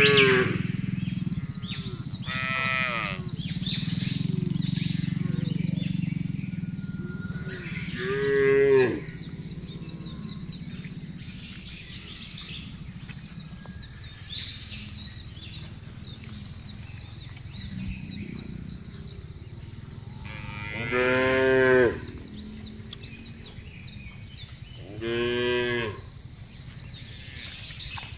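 Cattle mooing: a few long, separate moos spread out with pauses between them. The loudest come about a third of the way in and twice near the end.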